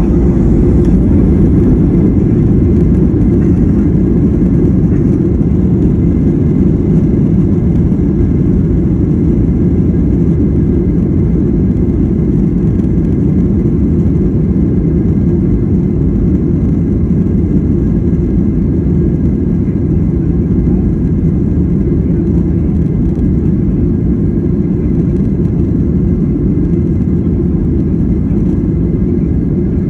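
Boeing 737-900's CFM56-7B jet engines at takeoff power during the takeoff roll, heard inside the cabin over the wing: a loud, steady rumble that rises at the start and then holds.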